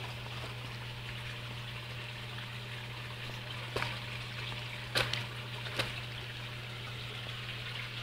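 Steady hiss like trickling water, over a constant low hum, with a few short light clicks about halfway through.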